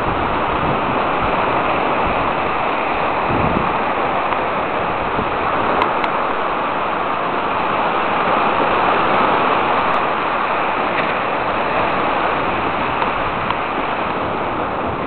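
Steady rush of sea surf washing onto a sandy beach, swelling a little about halfway through.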